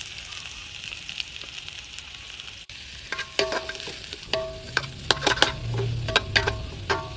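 Spinach frying in a pan with a steady sizzle. From about three seconds in, a metal utensil repeatedly clanks and scrapes against the pan as it is stirred.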